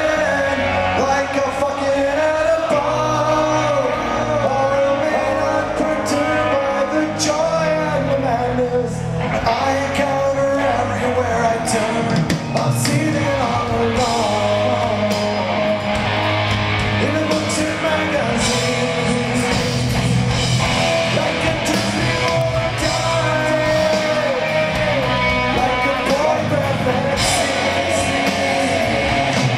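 Live punk rock band playing loudly: distorted electric guitars, bass and drums with a male lead singer.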